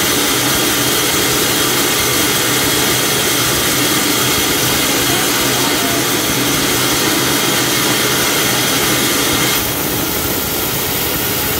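Band sawmill running, its blade cutting through a large log to rip off a thick live-edge slab: a loud, steady noise of motor and blade in the wood. About ten seconds in, the sound drops a little and a thin, high, steady tone comes in.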